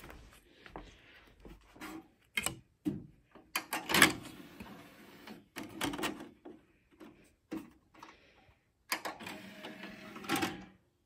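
DVD player mechanism clicking and whirring as a disc is loaded and the tray closes, mixed with irregular knocks and rustles of handling. The loudest click comes about four seconds in, and a denser spell of mechanical noise follows near the end.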